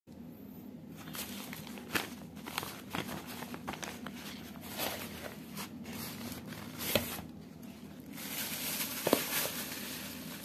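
Thin plastic delivery bag rustling and crinkling as it is handled, with scattered sharp taps and clicks, busier near the end. A steady low hum runs underneath.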